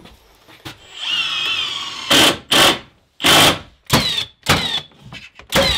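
Power drill driving screws into wooden ceiling boards. The motor whines steadily for about a second, then runs in a string of short bursts, several with a rising whine as it spins up.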